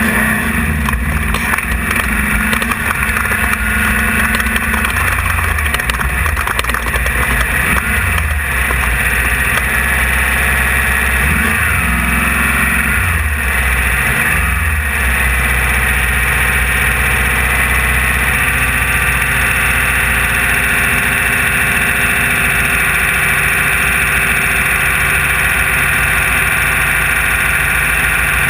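In-cab sound of a 1600-class off-road race buggy's air-cooled VW engine running hard. Its pitch rises and falls with throttle and gear changes through the first half, then it settles into a steady drone from about halfway on.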